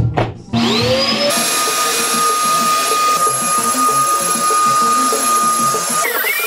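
Upright vacuum cleaner switched on about half a second in, its motor whine rising and settling into a steady run with a high whistle. Just before the end the pitch shifts as a new tone glides up.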